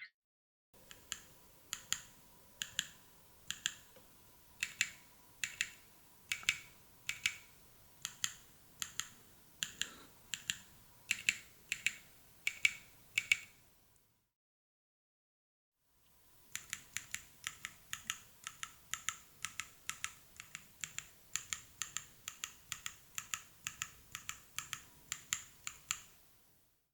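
Keystrokes on a grid 100 mechanical keyboard with grid linear semi-silent switches: soft clicks of key presses and releases, at an unhurried pace for the first half. After a pause of about two seconds in the middle, faster steady typing follows on the build with all rigid-flex PCBs.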